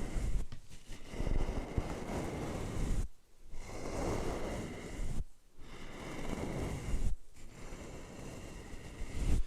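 A fluffy brush swept over the microphone in ASMR mic brushing, making a close, scratchy rustling. The rustling comes in stretches broken by three short pauses, about three, five and seven seconds in.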